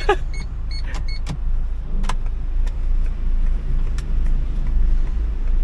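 Car's engine and running noise heard from inside the cabin as a steady low rumble, with a few sharp clicks about a second in, at two seconds and near four seconds.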